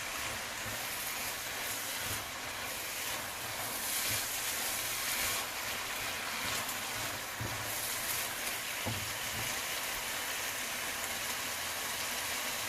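Fried cabbage and potatoes sizzling steadily in a pan, an even hiss throughout.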